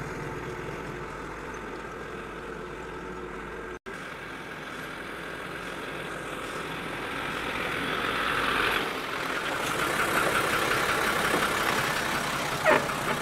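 Loaded Isuzu truck's diesel engine running as the truck moves slowly along a dirt track, growing louder from about eight seconds in. The sound cuts out for an instant about four seconds in.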